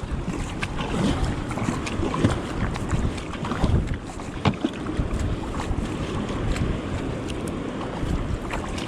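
Water rushing and splashing along a kayak's hull as it runs in through small surf, with wind buffeting the microphone and short splashes throughout.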